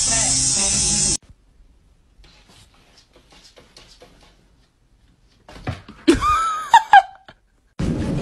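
An electric toothbrush buzzing steadily, cutting off suddenly about a second in. Then faint taps, and about six seconds in a burst of loud high calls that rise and fall in pitch, the loudest sound here. Near the end a steady noisy hum starts.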